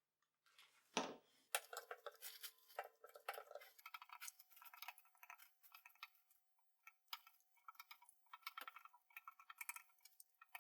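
Faint handling sounds of encaustic painting tools and wax blocks on a hotplate: a single knock about a second in, then many small clicks and light scraping. A faint steady hum joins about four seconds in.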